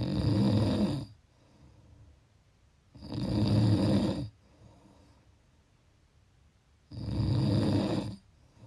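Snoring: three loud, rough snores of about a second each, coming roughly every three and a half to four seconds, with quiet breathing gaps between them.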